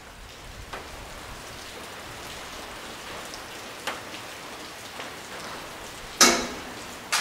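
Roof pantograph of a JNR 183 series electric train being raised: over a steady hiss, a sudden loud clank about six seconds in that rings off briefly, then a sharp click just before the end as it rises to the overhead wire.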